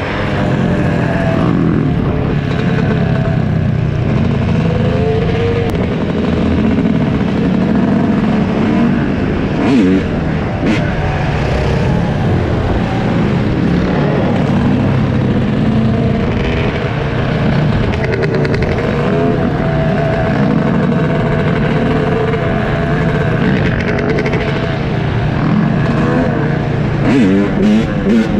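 Yamaha dirt bike engine running under way, the revs rising and falling as it is ridden through the gears, with other motorbikes and quads running close by.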